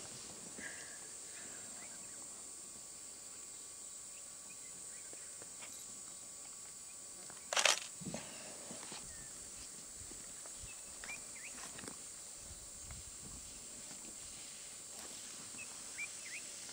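Quiet bush ambience: a steady high insect drone with a few faint short chirps, and one sharp click about halfway through.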